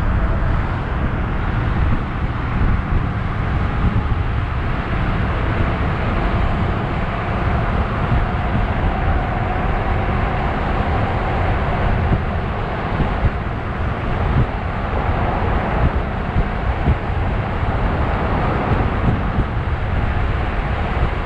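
Wind buffeting the microphone with tyre and road noise, riding at speed on a 72-volt, 5000-watt DIY electric bike; a faint whine rises and falls around the middle.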